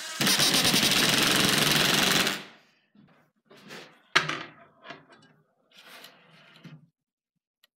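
Cordless impact driver hammering a screw into a wooden ax handle: a loud rapid rattle for about two seconds that stops abruptly. Then a few light knocks and one sharp clack about four seconds in, as wood is handled on a table saw top.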